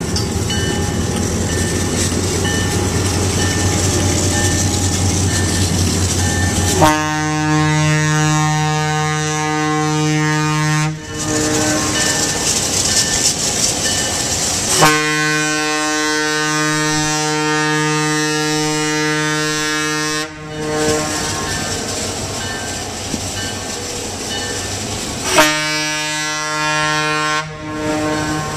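A diesel switcher locomotive's old single-chime horn sounding three blasts: a long one about seven seconds in, a longer one near the middle, and a short one near the end. Under it the locomotive's diesel engine runs with a low rumble as the train rolls across a steel truss bridge.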